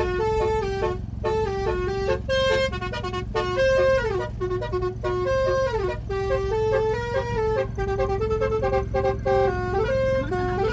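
Basuri musical bus horn playing a tune: a run of short horn notes stepping up and down in pitch, with a few brief breaks, over a steady low hum.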